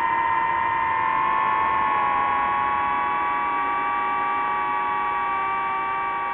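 DJI FPV quadcopter's motors and propellers whining steadily in flight: several high tones at slightly different pitches, one splitting into two that drift slowly apart about a second in.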